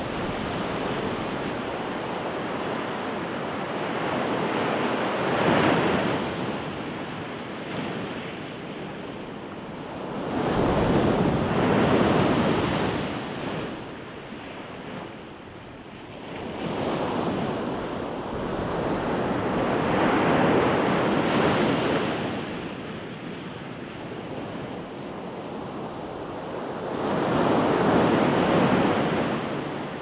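Pacific Ocean surf breaking and washing up the beach, rising and falling in about four swells, several seconds apart.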